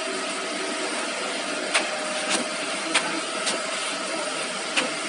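Sharp taps and knocks, about five scattered over a few seconds, as an abrasive sanding belt is handled and pushed onto the rollers and frame of a CD grinding machine. A steady whirring noise runs underneath.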